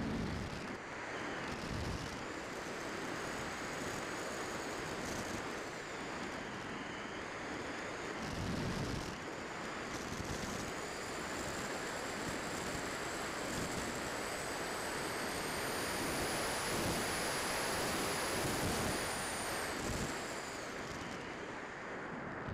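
Rushing airflow buffeting the onboard camera of a Multiplex Heron RC glider in flight, with a thin high whistle that climbs in pitch through the middle and falls away near the end.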